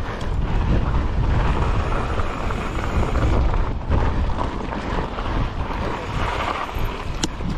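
Wind buffeting the microphone over the rumble of mountain bike tyres rolling along a rocky dirt trail, with a sharp click near the end.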